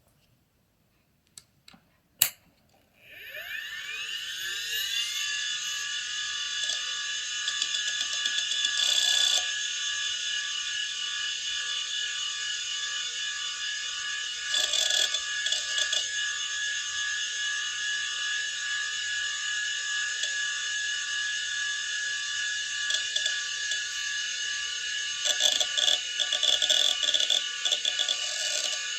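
Quantum Bigfoot CY 2.1 GB 5¼-inch hard drive powering on. A couple of sharp clicks are followed by its spindle motor spinning up with a rising whine, which settles into a steady high whine. Short bursts of head-seek clicking and clatter come several times over it, mostly in the second half.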